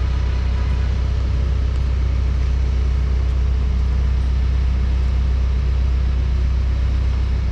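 Heavy diesel engine running steadily, a constant low drone with no change in speed.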